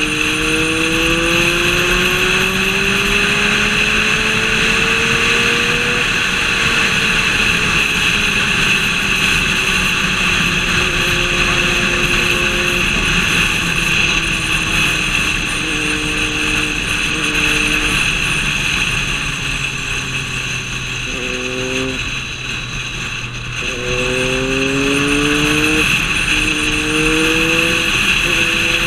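A high-performance vehicle engine accelerating hard: its pitch climbs steadily for about six seconds, sinks slowly as it eases off, then rises again in several quick pulls broken by gear changes in the second half. It runs over a steady rushing noise.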